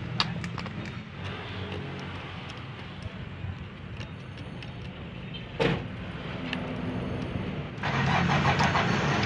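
Small metal blade scraping paint off the terminals of an alternator's rectifier diode plate, cleaning the metal so solder will take, over a vehicle engine running steadily in the background. There is a sharp tap a little past halfway, and the sound gets louder for the last second and a half.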